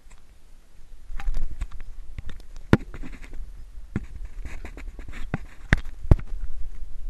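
Irregular sharp knocks and scrapes on a GoPro's housing over a low, muffled rumble.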